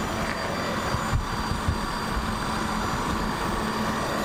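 Nissan VQ35DE 3.5-litre V6 engine idling with an even, steady hum. The seller says it runs excellently.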